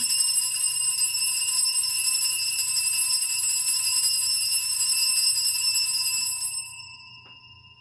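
Altar bells (a cluster of Sanctus bells) shaken in a continuous jangling peal for about six and a half seconds, then a few clear tones ringing on and fading away. This is the bell rung at the elevation of the consecrated host during Mass.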